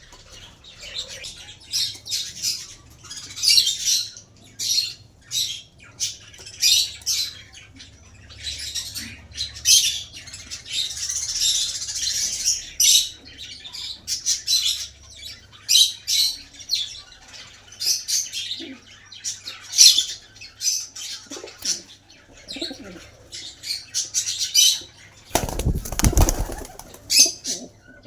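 Small pet parrots chirping rapidly, a dense run of short high chirps with no pause. About 25 seconds in there is a loud, low rumble or thump lasting about a second and a half.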